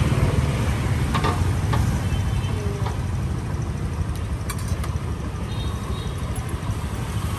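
Steady low rumble of street traffic with motorbikes passing, and a few light clicks of wooden chopsticks against a metal frying pan.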